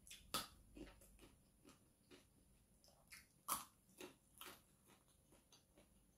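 Faint close-up eating sounds: a person biting and chewing crunchy food, a scatter of sharp crunches, the loudest about half a second in and again about three and a half seconds in.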